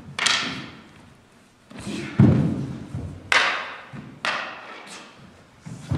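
Prop swords clashing in a staged sword fight: about six sharp clacks spread a second or so apart, with a heavy low thud about two seconds in.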